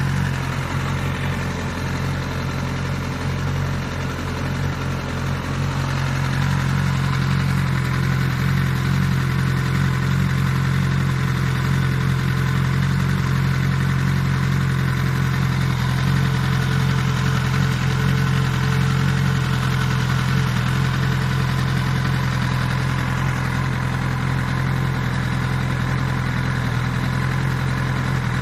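Suzuki GSX-S1000 GT+ inline-four engine idling steadily. The sound is a little rougher in the first few seconds and then settles to an even idle.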